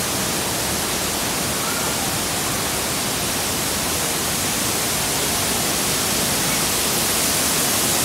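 Waterfall: a steady rush of falling water, growing a little louder near the end.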